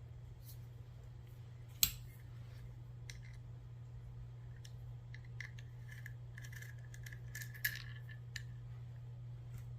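Small steel parts of a Girsan 2311 pistol being handled and worked apart: a sharp metallic click about two seconds in, then a run of small clicks and scrapes in the second half. A steady low hum lies underneath.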